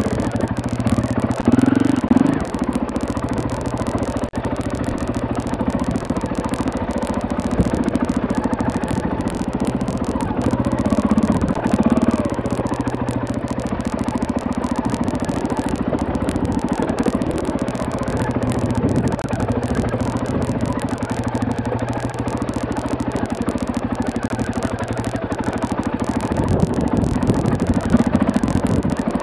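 KTM 450 EXC's single-cylinder four-stroke engine running steadily as the bike is ridden over a rough stone track, the note swelling briefly a few times, with an occasional knock.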